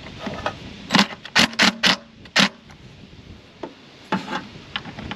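Sharp, irregular clicks and taps of hands handling the throttle body and intake parts: about five in quick succession a second or two in, then a few fainter ones near the end.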